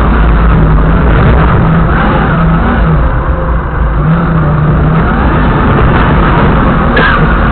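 Doosan forklift's engine running loud and steady as the forklift drives along, heard through a cab-mounted black-box camera that dulls the sound.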